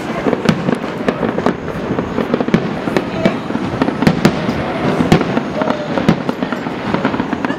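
Aerial fireworks bursting in quick succession: a continuous rumble and crackle with a sharp bang about once a second.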